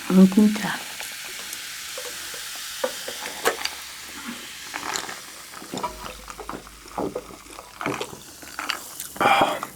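Crunching and chewing of crispy oven-baked chicken, with a fine crackling hiss and many small clicks, and a louder burst near the end.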